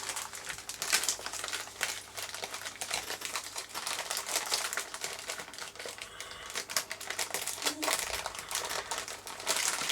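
Wrapper of chocolate biscuits crinkling and crackling as it is handled, an irregular run of quick sharp crackles.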